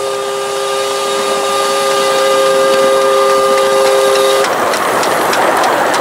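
7¼-inch gauge live-steam locomotive, a Rio Grande No. 486 model, sounding its chime whistle: a steady chord of several notes held for about four and a half seconds, then cut off sharply. After it, the noise of the engine running close past, with light clicks from the track.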